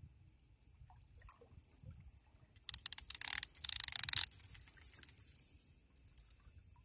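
Fishing reel clicking rapidly for about a second and a half, starting about three seconds in, as line runs against the drag under a big sturgeon. Crickets chirr steadily throughout.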